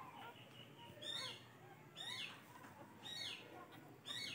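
Newborn pit bull terrier puppy crying while being handled: short high-pitched squeals about once a second, each falling in pitch.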